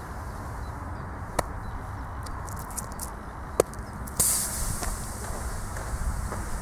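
A metal spike punched into a swollen lithium-polymer RC battery pack: a few sharp clicks, then about four seconds in a sudden hiss as the pierced cell vents gas, fading over a second or so. The venting brings only a little smoke and no flame.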